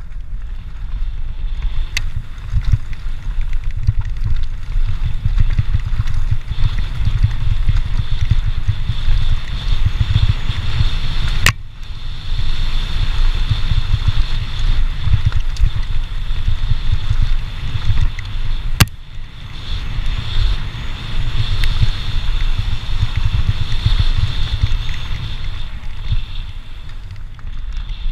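Wind buffeting the camera microphone of a mountain bike rolling fast over a gravel trail, a continuous low rumble under a steady hiss of the tyres on loose stones. A few sharp clicks stand out, about two seconds in, near the middle and about two-thirds through.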